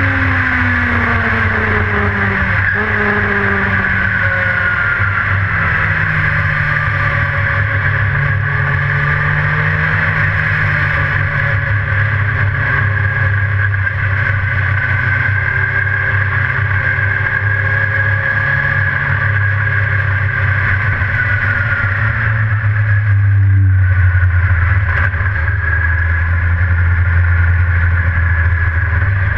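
Dirt-track race car engine heard from inside the cockpit, running loud and continuous as the car laps. Its pitch falls over the first few seconds as the car slows, then holds fairly steady, with the low drone swelling a little near the end.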